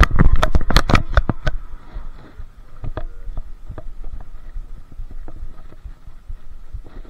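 Clattering handling noise close to the microphone as a catfish is held up in plastic fish grippers: a quick run of sharp knocks and rattles over the first second and a half, then scattered single clicks over a low rumble.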